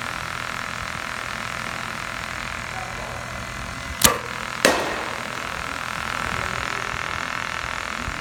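Two sharp cracks about half a second apart during baseball batting practice, the second trailing off briefly, over a steady background hum.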